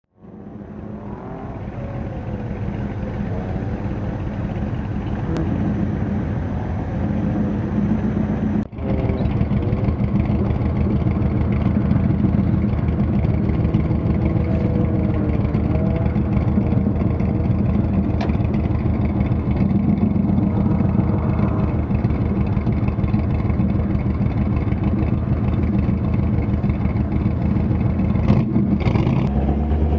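Corvette Stingray's V8 engine idling steadily with a low rumble while the car sits stationary. The sound fades in at the start and cuts out for an instant about nine seconds in.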